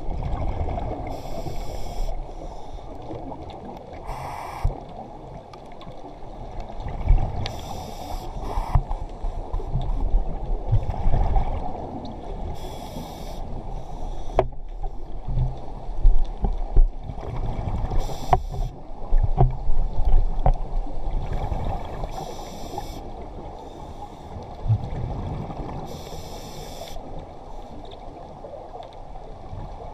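Scuba diver breathing through a regulator underwater: a hissing burst of exhaled bubbles every four to five seconds over a steady low rumble of water movement, with a few sharp clicks around the middle.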